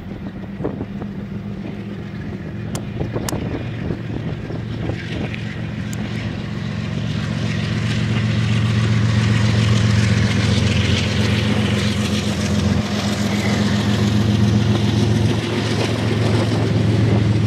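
Canadian National diesel freight locomotives passing, their engines giving a steady low drone that grows louder over the first half and stays loud as the double-stack container cars roll by.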